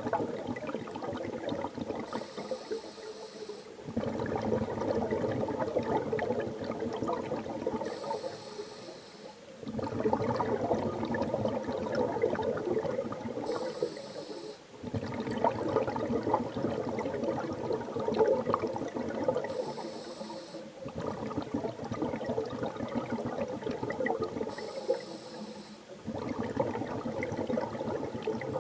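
Underwater sound of a scuba diver breathing through a regulator: a short hissing inhale with a faint whistle, then a longer bubbling exhale, repeating about every six seconds, five breaths in all.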